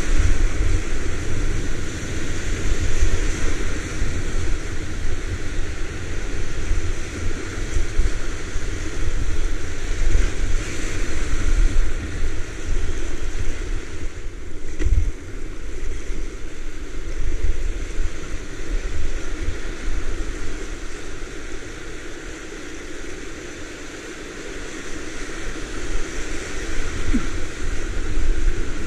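Whitewater rapids rushing around a paddleboard, with a constant low rumble of wind on the microphone. The rush eases for a few seconds about three-quarters through, then picks up again near the end.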